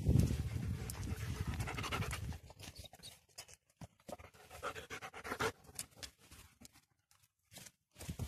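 Five-week-old German Shepherd puppies playing on grass: breathing and rustling, loudest in the first two seconds, then scattered small clicks and rustles with quiet gaps.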